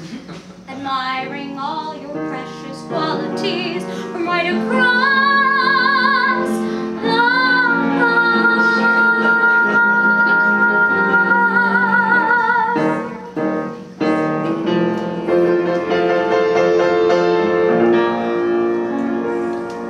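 A woman singing with piano accompaniment, holding one long note with vibrato for about five seconds; the piano chords carry on under her voice toward the end.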